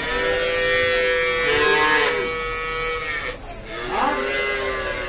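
Young calves bawling: one long, high-pitched call of about three seconds, then a shorter call about four seconds in.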